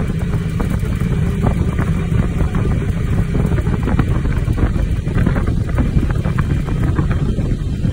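Wind buffeting the microphone at an open vehicle window, over the steady low rumble of the vehicle driving along the road.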